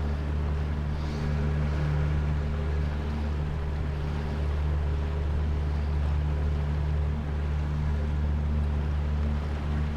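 Jet boat's outboard jet-drive motor running steadily underway, an even low drone.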